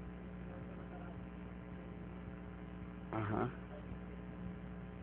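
Steady electrical mains hum, with a man's voice heard briefly and faintly about three seconds in.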